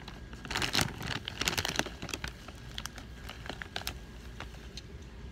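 Close handling noise: rustling and crinkling right at the microphone in several bursts over the first two seconds, then scattered small clicks and rustles that fade out about four and a half seconds in.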